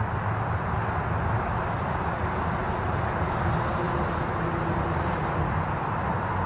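Steady wind noise on the microphone: an even rumbling rush with no distinct events.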